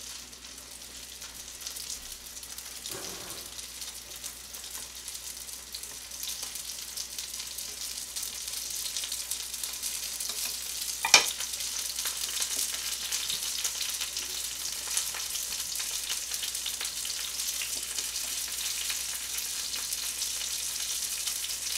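Frozen dumplings sizzling in a frying pan: a steady crackling sizzle that grows gradually louder, with one sharp click about eleven seconds in.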